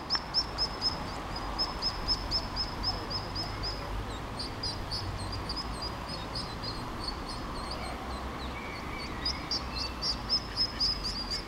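Mallard ducklings peeping: a run of short high peeps, about four a second, that loosens into a sparser scatter midway and picks up again near the end. These are the calls of ducklings separated from their mother.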